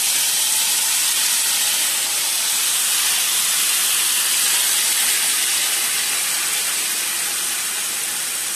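Marinated paneer, onion and capsicum sizzling as it is tipped into hot oil in a nonstick frying pan: a loud, steady hiss that eases a little near the end.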